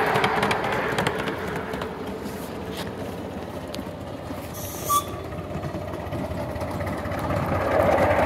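Ride-on miniature railway trains running on the track. One passes and fades away, then another train approaches and grows louder near the end, with a brief hiss about halfway through.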